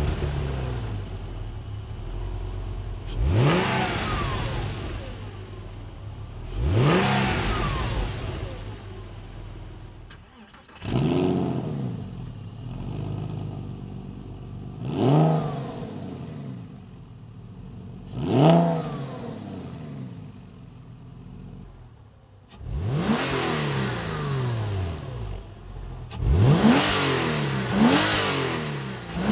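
Porsche 911 996's 3.4-litre naturally aspirated flat-six heard at the tailpipes. It starts from cold and is revved twice on the standard mufflers. It starts from cold again and is revved twice with the Gundo hack, a bypass pipe welded across each muffler, which makes the exhaust louder and changes its tone. Near the end it runs warm on the standard mufflers and is revved several times, each rev a quick rise and fall in pitch.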